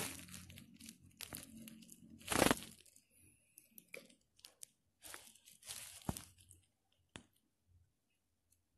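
Plastic wrapper crinkling and tearing in irregular short bursts as a small packaged item is handled, the loudest burst about two and a half seconds in, with a couple of sharp clicks near the end.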